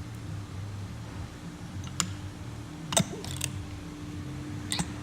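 Scattered metal clicks and clacks from a manual button badge press as a pin-back badge is pressed in the second die, with the sharpest clack about three seconds in. A steady low hum runs underneath.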